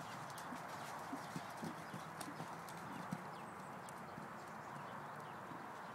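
Hoofbeats of a horse cantering on sand arena footing: soft, uneven thuds over a steady hiss.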